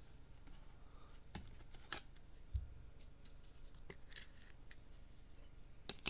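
Trading cards in clear plastic toploaders being handled and set down on a table: scattered light clicks and taps, with two sharp clicks close together at the end.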